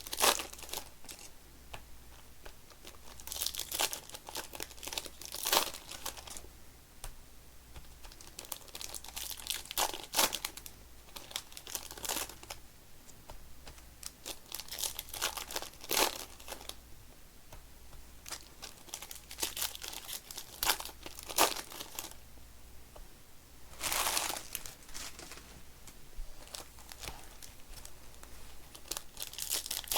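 Foil trading-card pack wrappers being torn open and crinkled by hand, in irregular bursts of crackling every few seconds.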